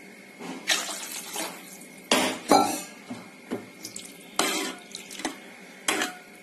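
Metal ladle stirring liquid rasam in a metal cooking pot: repeated irregular knocks and scrapes against the pot, some with a short metallic ring, over liquid sloshing.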